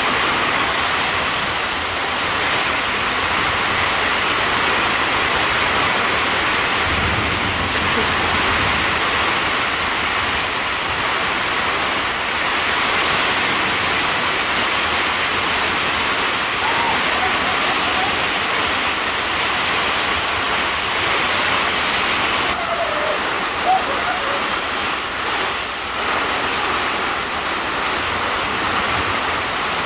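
Heavy tropical downpour falling steadily on a corrugated sheet-metal roof overhead and on the surrounding trees, a loud, even rush of rain.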